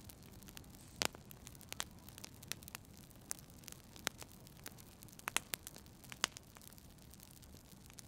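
Wood fire crackling in a fireplace: irregular sharp pops and snaps over a low steady hiss. The loudest pop comes about a second in, and a few more cluster a little past the middle.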